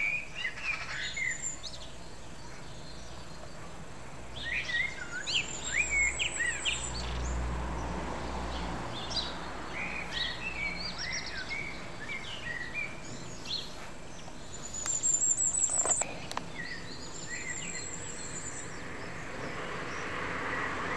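Several garden songbirds singing in bursts of short chirps and whistled phrases, with now and then a rapid high trill. Under them runs a steady background rush that grows louder near the end.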